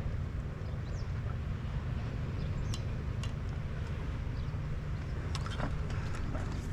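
Steady low outdoor rumble, with a few short clicks and taps in the second half as fishing rods and a spinning reel are picked up and handled.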